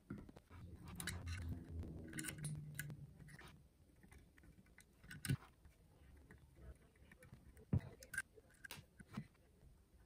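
Faint scattered clicks of needle-nose pliers and a soldering iron tip against a circuit board while a broken USB port is pried and desoldered, after a faint low hum in the first three seconds.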